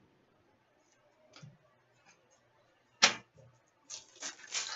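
Trading card packs and cards being handled: faint scattered ticks, one sharp snap about three seconds in, then a brief run of crinkling near the end as the next pack is opened.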